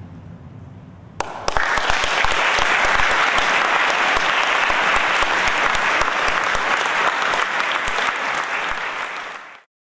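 Audience applauding, breaking out suddenly about a second in and cutting off abruptly near the end. A low hum is heard under the opening second before the clapping starts.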